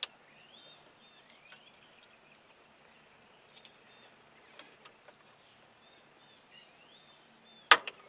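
A steel snap ring on a steering shaft being pried with screwdrivers pops out of its groove with one sharp click near the end. Faint bird chirps in the background.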